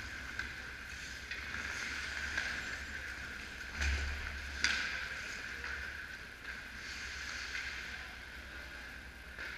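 Ice hockey play on an indoor rink: skates scraping the ice over a steady low hum, with two sharp clacks of stick and puck about four and four and a half seconds in.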